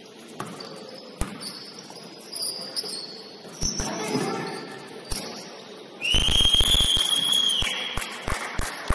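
Basketball game on a gym court: a ball thumps on the floor amid short sneaker squeaks. About six seconds in, a referee's pea whistle blows one long trilling blast, the loudest sound, lasting about a second and a half. The ball is then bounced again in quick succession.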